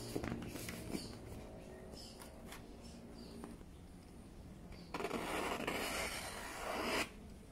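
Precision craft knife scoring along the paper backing of a vinyl wrap sticker: a scratchy scraping hiss lasting about two seconds near the end, which cuts off sharply. Before it come a few seconds of light handling clicks and paper rustles.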